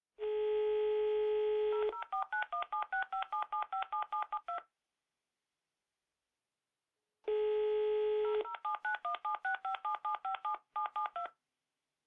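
Telephone automatic redial, heard twice: a steady dial tone for about two seconds, then a quick string of a dozen or so DTMF touch-tone beeps, about five a second, as the number is dialed. After a silent pause of a few seconds the same sequence starts again.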